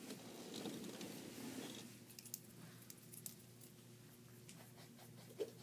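Quiet room: soft rustling and pen scratching on sketch pads with a few small clicks, fading after about two seconds to leave a low steady hum.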